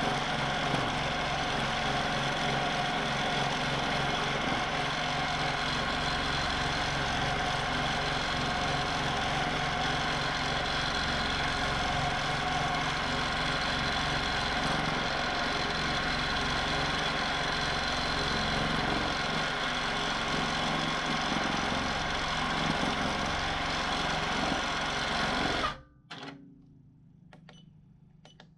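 Q'nique 19 longarm quilting machine stitching steadily in constant (manual) mode: a motor hum with a fast, even needle beat. It cuts out about 26 seconds in, with near silence for a couple of seconds before the sound returns at the very end.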